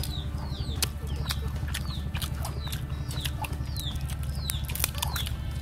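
Chicks peeping: short high peeps that fall in pitch, about two a second, with scattered sharp clicks over a steady low hum.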